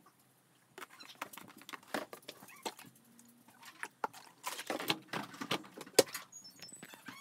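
Dishes and plastic cups knocking and clinking with splashes of water as a child washes dishes at a sink: an irregular run of clatters starting about a second in, the sharpest knock near the end.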